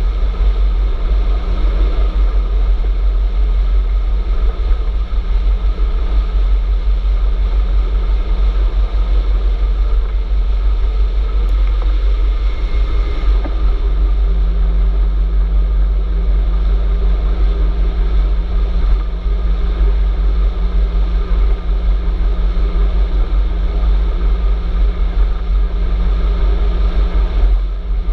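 Steady wind rumble on the microphone of a camera riding on a moving electric bicycle, with a low hum under it that grows stronger about halfway through.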